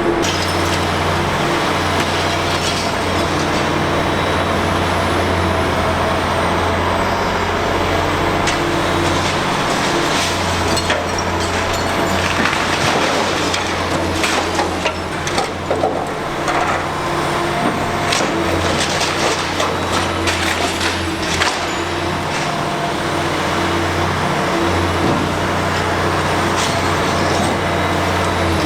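Diesel engine and hydraulics of a Liebherr R 960 high-reach demolition excavator running steadily under load, the engine note dipping briefly now and then. Scattered crunches and clatters of breaking concrete and debris come through in the middle stretch.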